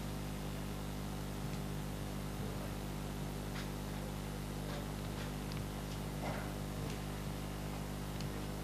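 Room tone in a quiet hall: a steady low hum and hiss, with a few faint scattered rustles and ticks from pens and paper.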